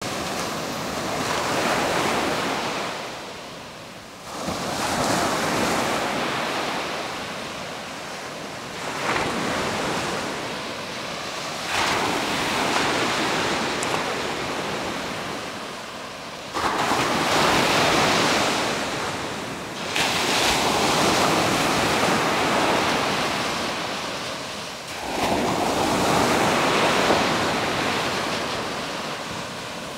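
Ocean surf breaking on a sandy beach, waves rushing in and washing back one after another, each swell rising and fading every few seconds.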